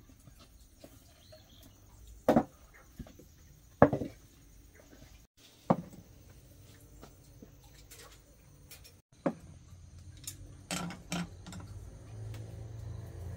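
Tableware set down on a wooden table: about six separate sharp knocks and clinks of bowls, plates and chopsticks, a second or more apart. A low hum comes in near the end.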